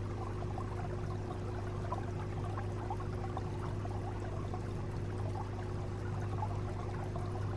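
Aquarium water trickling and splashing steadily, as from a filter return, over a low steady hum.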